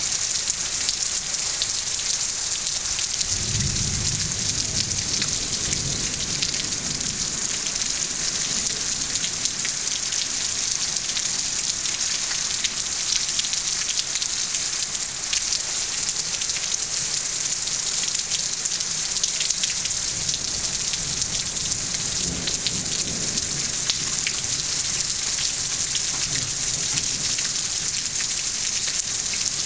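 Steady rain falling, with thunder rumbling low twice: once a few seconds in, and again about three quarters of the way through.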